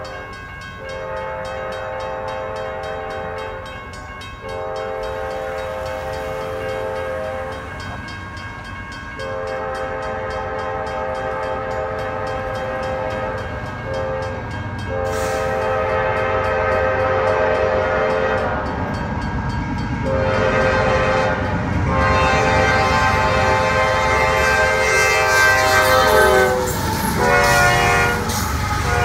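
Nathan K5LA five-chime air horn on a CSX GE locomotive, sounding repeated blasts, most of them held several seconds and a few short ones near the end. Under the horn the diesel engines and the rumble of the train grow steadily louder as the lead locomotives approach and pass close by.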